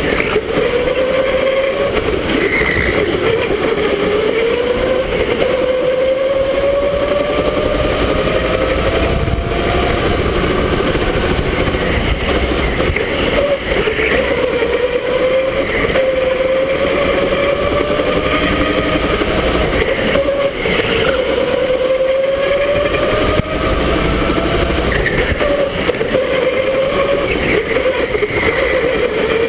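Electric indoor go-kart running at speed: the motor's whine climbs in pitch as the kart accelerates and drops back into the corners, over a steady rough rolling noise.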